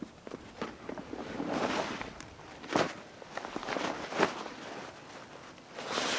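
Heavy fabric jacket rustling and swishing as it is shaken out and pulled on, in a few separate swishes about a second apart.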